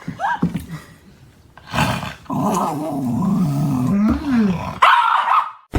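Dog growling and grumbling. There is a short rising whine just after the start, then a long wavering growl in the middle that slides down in pitch at its end, and a short, harsh burst near the end.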